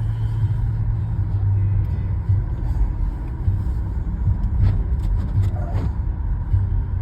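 Steady low rumble of a motor vehicle running, with a few faint clicks about five seconds in.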